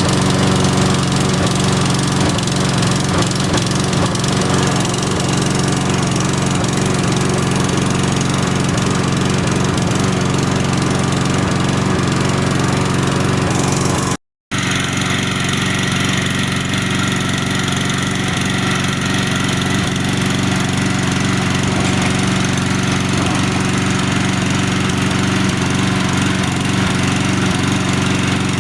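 Several walk-behind lawn mowers running together at a steady high idle: two-stroke Toro and Lawn-Boy engines alongside a four-stroke Briggs & Stratton, merged into one loud, even engine din. The sound cuts out for a fraction of a second about halfway through.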